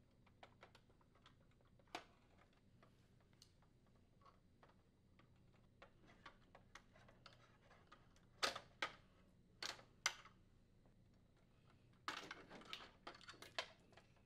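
Faint scattered clicks of plastic wire retainers being worked off a washer control circuit board with needle-nose pliers and a small screwdriver, with a few sharper clicks past the middle. Near the end a denser clatter of plastic clicks and rattling as the board is pulled free of its plastic housing.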